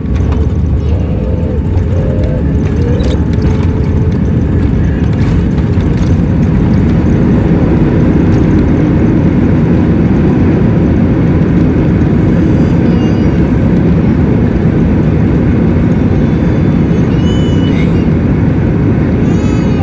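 Airbus A320 rolling out on the runway just after touchdown, heard from inside the cabin: a loud, steady rumble of engines and wheels that swells over the first few seconds as the jet decelerates with its spoilers raised.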